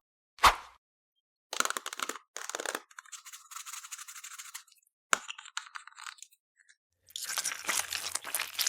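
Crunchy floam slime full of foam beads being squeezed and pressed, giving several short bursts of dense crackling and popping. There is a sharp, loud pop about half a second in and another about five seconds in.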